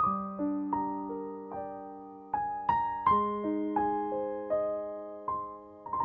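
Background piano music: a slow melody of single struck notes over held lower notes, each note starting sharply and fading away.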